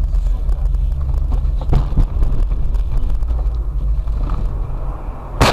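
Steady low rumble of a car driving, with a knock about two seconds in and a sharp bang at the very end.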